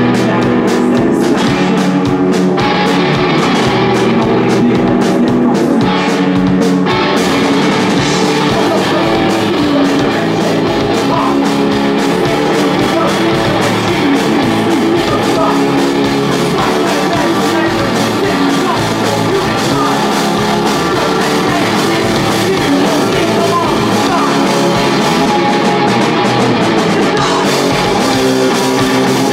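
Rock band playing live: electric guitar, bass and drum kit, with a sung lead vocal. About seven seconds in the playing becomes fuller and denser, with more cymbal wash on top.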